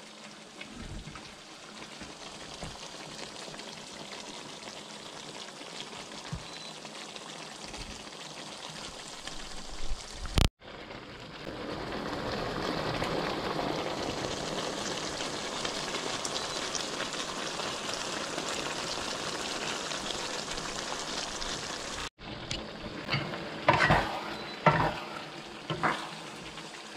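Tomato-sauce chicken stew simmering in a pan in its last minute of cooking: a steady sizzling, bubbling hiss that gets louder about ten seconds in. Near the end a spatula stirs the stew, with knocks and scrapes against the pan.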